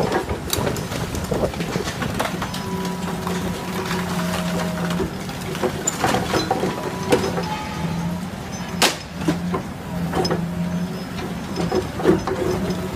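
Demolition excavator breaking up a concrete building: its engine runs steadily while the grab crunches into the structure, with several sharp cracks and clatters of breaking masonry, the loudest about nine seconds in.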